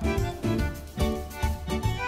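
Background music with a melody over a steady, even beat.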